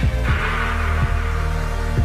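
Cinematic background music: a deep, pulsing heartbeat-like beat, some strokes in close pairs, under sustained low tones.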